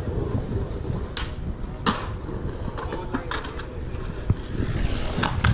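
Wind buffeting the microphone as a low, uneven rumble, with a few short sharp sounds over it.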